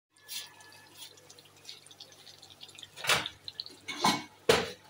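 Thick chicken karahi gravy simmering in a karahi, bubbles popping and plopping in the oily sauce: scattered small pops with three louder plops about three, four and four and a half seconds in, over a low steady hum.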